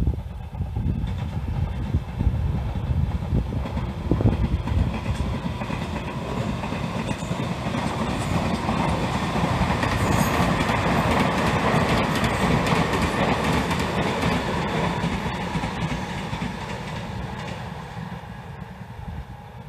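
Meitetsu electric commuter trains passing on the line, the sound of the wheels on the rails building to its loudest around ten to thirteen seconds in, then fading away near the end.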